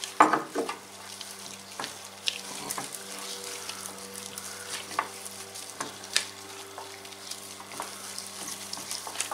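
Gloved hands rubbing olive oil into the skin of a raw whole chicken in a metal tray: wet, crackly rubbing and smacking with scattered sharp clicks.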